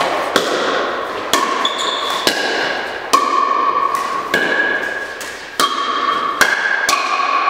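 Doubles pickleball rally: the hollow plastic ball popping off paddles about once a second, each hit followed by a brief ringing tone.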